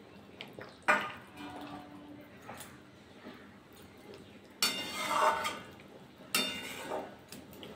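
Metal spatula stirring eggplant and potato pieces in curry gravy in a metal kadai, scraping and clinking against the pan. There is a sharp clink about a second in, then a longer scrape and another clink in the second half.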